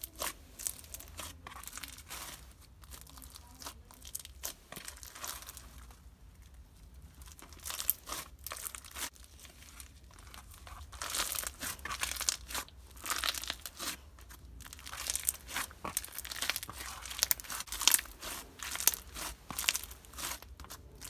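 Hands squishing and pressing a crunchy slime mixed with a foam slime, making many small crackles and pops. The crackling is sparse at first and grows denser and louder from about halfway through.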